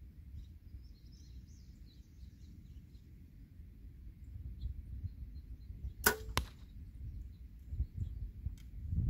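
Compound bow shot about six seconds in: two sharp cracks roughly a third of a second apart as the string is released and the arrow leaves.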